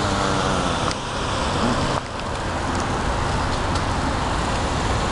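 Road traffic at an intersection: a car's engine and tyres as it drives past close by, then steady traffic noise.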